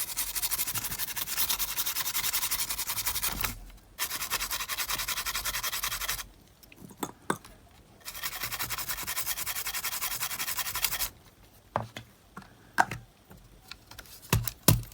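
Scrubbing rosin flux residue off freshly soldered joints on a cassette player's circuit board, in three bouts of quick back-and-forth rubbing, followed near the end by a few light clicks and taps.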